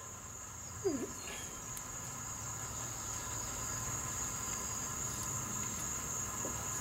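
Steady high-pitched insect-like trill, like crickets, runs throughout. About a second in there is one faint metallic click as the differential ring gear is rocked against its pinion for a backlash check.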